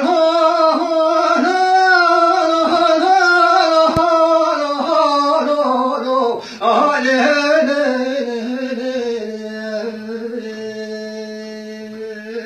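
A man singing unaccompanied: a slow, wordless melismatic vocal line of wavering sustained notes in a Kurdish folk style. There is a short breath about six and a half seconds in, and the line ends on a long, steady held note.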